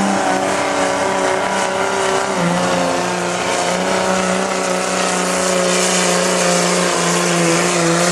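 Diesel pickup truck engine running flat out under heavy load as it drags a weighted pulling sled, a loud steady drone that drops slightly in pitch about two and a half seconds in and then holds.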